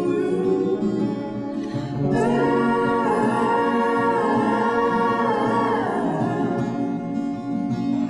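Background music: a song with singing over guitar, with long held vocal notes in the middle.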